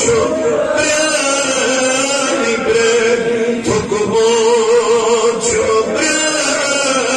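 A man singing a Kashmiri naat, a devotional song in praise of the Prophet, solo. He holds long, wavering melodic notes with short breaks for breath.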